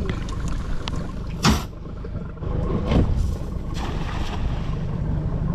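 Small boat's motor running low and steady, with a short sharp noise about a second and a half in and a smaller one around three seconds.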